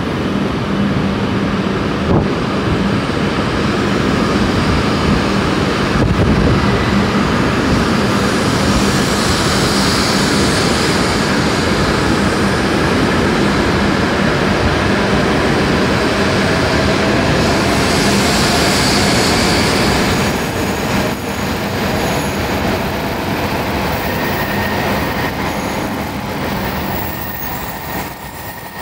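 Hokuriku Shinkansen E7/W7-series train pulling out along the station platform, its carriages rushing past with a loud, steady rumble and hiss that falls away about 20 seconds in. Near the end a thin, high squeal comes in as another E7/W7 train approaches on the far track.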